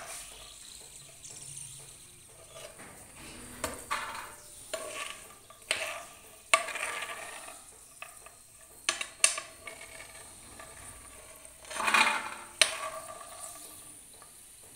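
A steel spoon scraping and clinking against a frying pan as ghee-roasted almonds are scooped out onto a steel plate, in irregular clinks and scrapes, with a faint sizzle of the hot ghee underneath.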